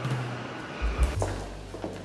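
Background music with held low bass notes and a couple of deep thumps a little before one second in.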